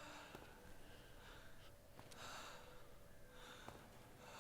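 Faint breathing, a few slow airy breaths.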